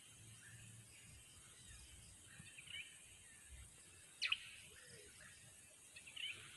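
Faint outdoor background with a few short bird chirps, the loudest a quick falling call about four seconds in.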